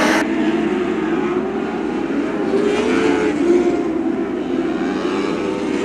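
Several motorcycle-engined lightning sprint cars racing together, their engines running at high revs with the pitch wavering up and down as they lift and get back on the throttle through the turn.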